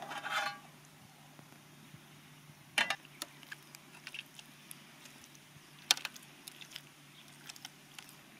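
Small hard objects being handled: a short rustle at the start, then two sharp clinks about three seconds apart, with a few lighter ticks between and after.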